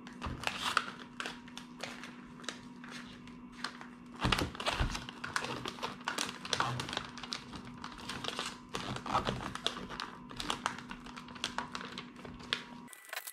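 Gift-wrapping paper crinkling and rustling in irregular bursts as it is folded and creased around a box, heaviest about four seconds in and again around nine seconds in. A faint steady hum underneath cuts off just before the end.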